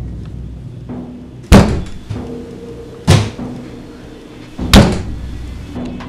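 Three heavy booming bangs, evenly spaced about a second and a half apart, each ringing out briefly, over a low droning horror-film score.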